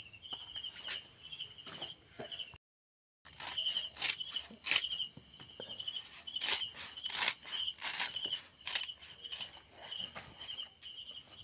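Crisp rustling and snipping of fresh banana leaves being cut with scissors and pressed into a tray, in short sharp bursts. Under it an insect chirps steadily in regular short trills at one pitch. The sound drops out for about half a second near three seconds in.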